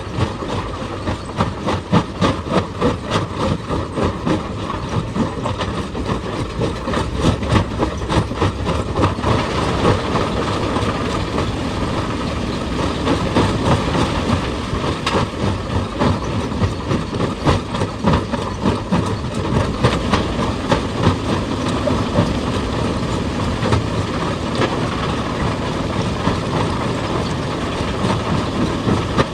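Rapid, continuous hammering of a hydraulic rock breaker on stone, several blows a second, over the steady running of heavy machinery. The blows are sharpest in the first several seconds and again near the end.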